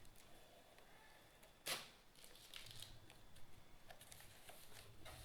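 Faint handling noises of a pressure cooker box being unpacked: soft rustles and light taps, with one brief louder rustle about a second and a half in.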